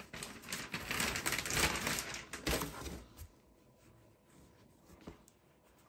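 Packaging of a folded t-shirt rustling and crinkling as it is opened by hand, for about three seconds, then only faint handling with a small click near the end.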